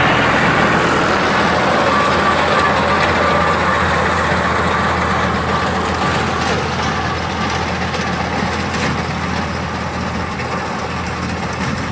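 NH Fiat 480 tractor's diesel engine running steadily under load, driving a front-mounted reaper binder as it cuts wheat. The sound fades slightly as the tractor moves away.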